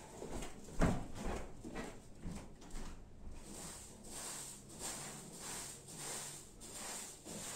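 Straw broom sweeping a floor in short scratchy strokes, about two a second, with a thump about a second in.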